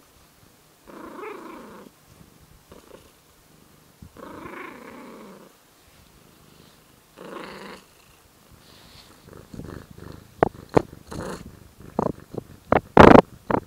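A cat growling and purring at the same time, with three drawn-out growly calls of about a second each. From about nine seconds in there is a run of loud bumps and scrapes as the cat's face and fur rub against the microphone.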